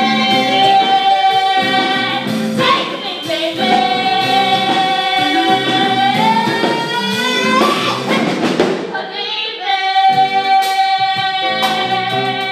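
Two women belting a duet over live band accompaniment, holding long high notes, with a rising glide up to a higher held note about six seconds in.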